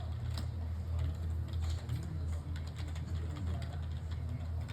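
Light, irregular clicking and tapping, like small hard parts or keys being handled, over a steady low hum.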